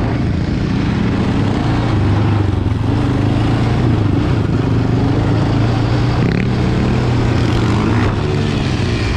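Sport quad's 700cc single-cylinder four-stroke engine running hard under throttle, its pitch rising and falling as it is ridden.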